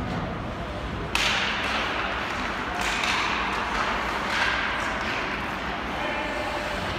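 Ice hockey play on the rink: a sharp crack of stick or puck about a second in, then skate blades scraping the ice in hissing swells over steady arena background noise.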